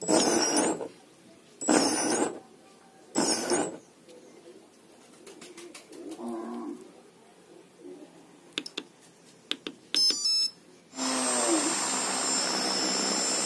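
Small brushless outrunner motor driven by an ESC, revved up and straight back down three times in short bursts, each with a high whine that rises and falls. After a few sharp clicks and a short run of electronic beeps about ten seconds in, it starts again and runs steadily with a high whine.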